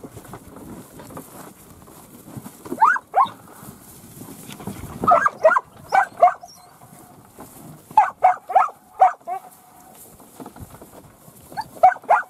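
Working dog barking at cattle in short rapid volleys of two to five barks, a volley every two to three seconds.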